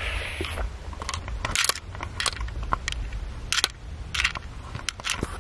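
Plastic packaging crinkling in a series of short, irregular crackles as plastic-wrapped packs of braiding hair are handled, over a low steady hum.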